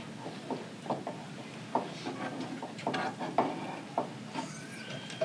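A chef's knife and a slotted metal spatula tapping and scraping on a plastic cutting board while a quesadilla is cut into wedges and lifted, heard as irregular clicks and knocks, the loudest a little past the middle.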